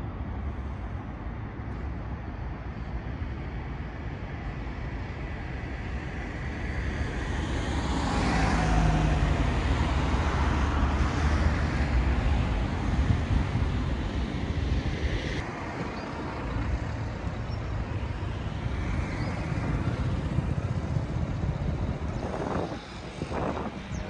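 Road traffic: steady tyre and engine noise of cars on a multi-lane road, swelling as a car passes close by in the middle and fading again. A few brief thuds near the end.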